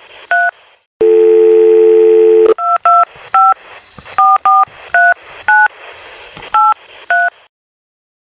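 Telephone touch-tone keypad dialling: one two-tone key beep, then about a second and a half of steady dial tone, then about nine more short key beeps as a number is dialled over a faint line hiss. The tones stop about a second before the end.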